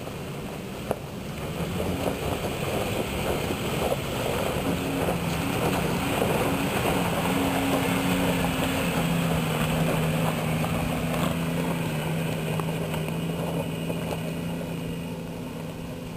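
Toyota 4Runner's engine pulling steadily up a loose gravel hill, with tyres crunching and stones clicking underfoot. It grows louder as it approaches, is loudest as it passes close about halfway through, and fades as it climbs away.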